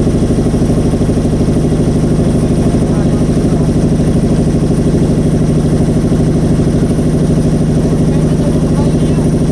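A boat's engine running steadily at an even speed, loud and close, with a fast regular pulse.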